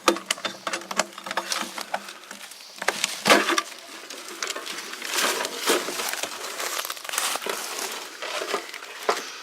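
Contents of a geocache box being handled and rummaged through: irregular crinkling and rustling with small clicks and knocks, one louder knock about three seconds in.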